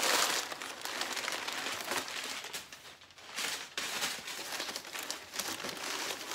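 Crumpled brown kraft packing paper rustling and crinkling as it is pulled out of a cardboard shipping box, with a short lull about three seconds in.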